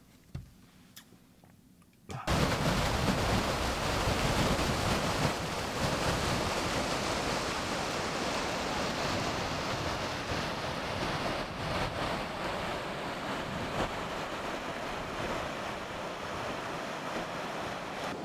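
Quiet room tone for about two seconds, then a loud steady rushing noise cuts in suddenly and eases slowly over the following seconds.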